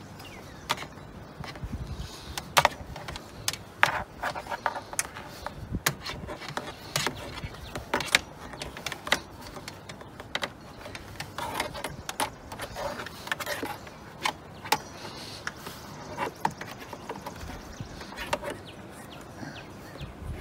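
Irregular clicks and taps as rubber edge trim is pressed by hand onto the metal fins of a roof-mounted light bar, with the strongest clicks about two and a half and four seconds in.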